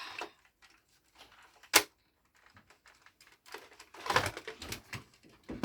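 Hard plastic Playmobil toy parts clicking and clattering as they are handled and pushed together. There is a sharp click about two seconds in, then a run of small clatters near the end.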